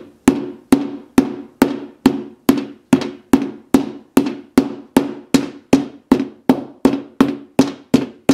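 A 2.5-pound hammer striking the glass screen of a Samsung Galaxy S6 Edge in a steady run of medium-sized hits, a little over two a second, each a sharp knock with a short ring. The screen glass is holding without cracking.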